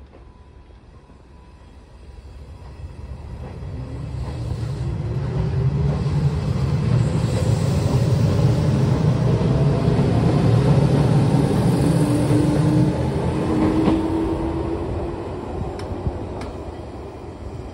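Izuhakone Railway 5000-series electric train pulling out of a station: a low rumble of wheels on rails builds as the cars run close past, with a whine rising in pitch as it accelerates. The sound then fades as it draws away, with a couple of sharp clicks near the end.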